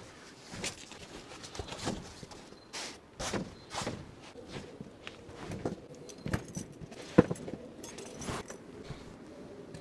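Handling noise of a folding foam sleeping pad being unfolded and laid out on a camp cot: irregular rustles and soft knocks, with one sharp knock about seven seconds in.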